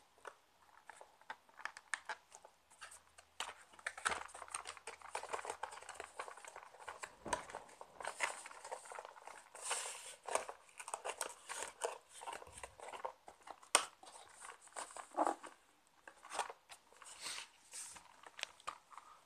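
Cardboard mouse packaging handled and pried at by hand: rustling, crinkling and scraping with many small clicks and taps.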